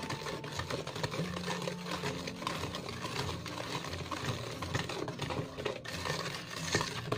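Wire whisk beating thick chocolate brownie batter in a stainless steel bowl: a fast, steady clinking and scraping of the wires against the metal.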